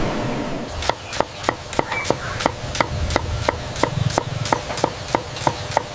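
Steady chopping strokes on a hard surface, about three a second, each a sharp knock with a short ringing tone. A hiss like wind or surf fades out in the first second.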